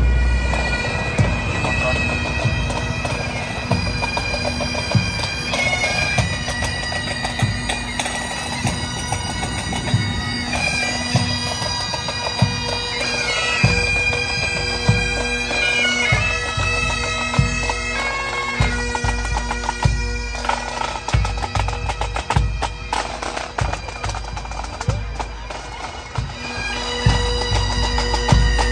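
Pipe band playing a march: bagpipes sounding a tune over a steady drone, with regular low drum beats underneath.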